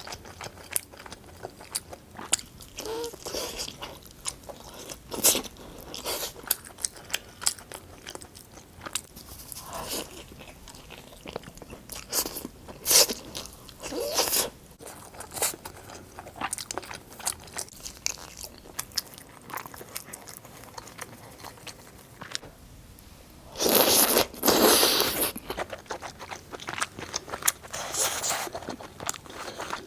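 Close-miked eating: a person biting and chewing pizza, with scattered small crunches and mouth clicks. About three-quarters of the way through comes a louder, noisier stretch lasting about two seconds.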